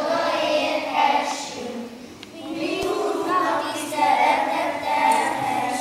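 A group of children singing together in a choir, with a short break between phrases about two seconds in.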